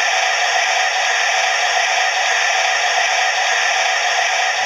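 Steady hiss of a steam locomotive's blower, the blower sound effect of a Hornby TTS digital sound decoder in an OO-gauge BR class 8 4-6-2 'Duke of Gloucester' model.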